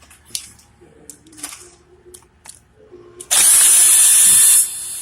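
A handheld power drill with an 8 mm socket spins out a clutch-cover bolt in one steady, whining burst of about a second and a half, starting after three seconds. It drops to a lower level for its last half second. A few light metal clicks of socket on bolt come before it.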